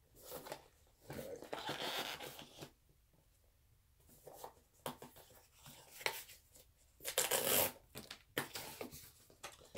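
Paper and cardboard packaging of a Google Home Mini box being handled and opened: intermittent rustling and scraping in short bursts, with a pause of about a second and a half near the three-second mark.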